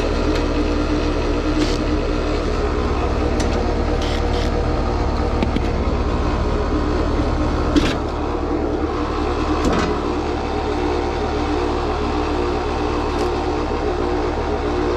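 Heat pump outdoor unit's R-410A compressor running with a steady, loud mechanical noise that sounds horrible, as if full of rocks: a noise the technician takes for an internal mechanical malfunction, with the compressor barely pumping. A few short knocks and clicks of the metal service panel being handled sound over it, the loudest about 8 seconds in.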